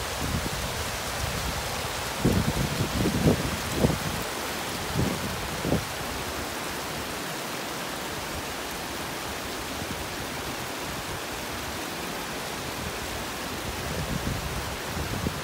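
Steady rushing of water from small cascading falls and a stream running over rocks. Between about two and six seconds in, a few short low rumbles of buffeting on the microphone break in.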